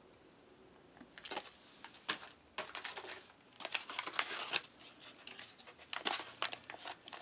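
Foil ration pouches crinkling and rustling as they are handled, in a string of irregular crackly bursts starting about a second in.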